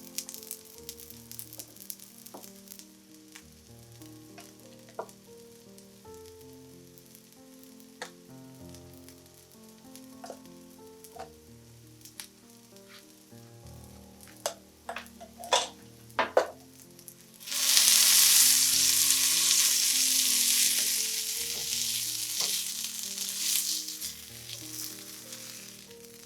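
A few light clicks and taps of kitchen utensils, then about two-thirds of the way in, food goes into hot oil in a pan and sizzles loudly, the frying slowly easing off toward the end.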